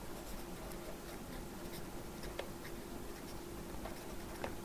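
Pencil writing on paper: faint scratchy strokes and taps of the pencil tip as words are written out, over a faint steady hum.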